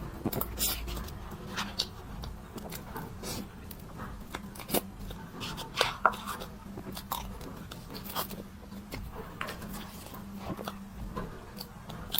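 Close-up mouth sounds of someone eating old-fashioned cream cake: soft chewing with irregular wet clicks and smacks, over a faint steady hum.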